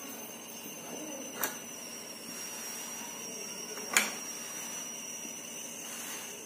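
Hands rolling a strip of dough on a marble board: quiet handling with two sharp taps, the louder one about four seconds in, over a faint steady high whine.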